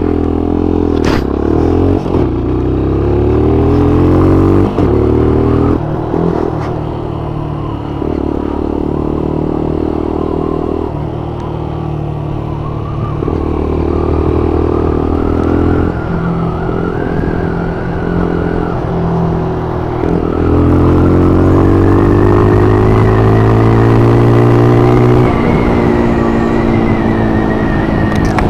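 Motorcycle engine under way, its pitch repeatedly climbing as it pulls through the gears and dropping at each change, with one long climb in the last third that falls away near the end.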